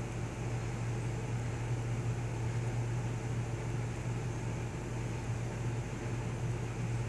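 Steady low mechanical hum with an even hiss underneath, unchanging throughout.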